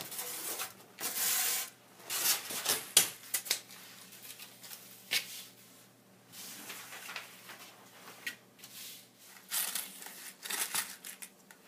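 Paper templates rustling and sliding over a foam board sheet as they are laid out and pressed flat by hand, in short bursts with a few sharp clicks.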